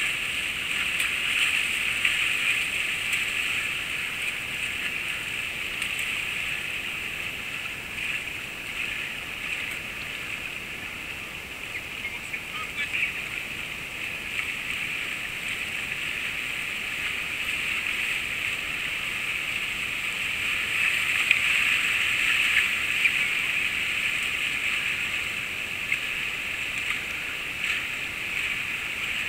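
Whitewater rapids rushing around a kayak: a steady hiss of churning river water that swells a little about two-thirds of the way through.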